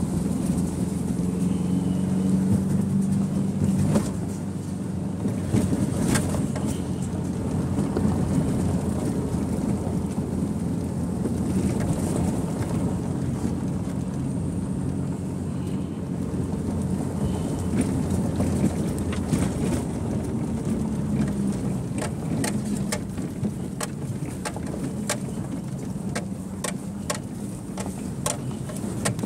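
1999 Subaru Outback's flat-four engine running steadily while the car drives over a rough dirt road, heard from inside the cabin, with road and tyre noise underneath. Sharp knocks and rattles from the car going over bumps come more often in the last several seconds.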